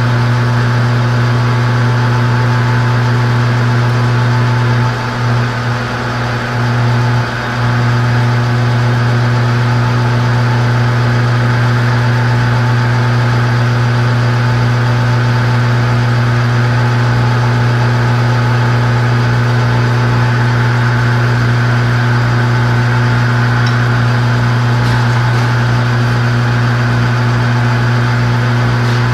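Metal lathe running steadily with a strong motor hum while facing the sealing face of an injector nozzle nut. The sound dips briefly a few times about five to seven seconds in.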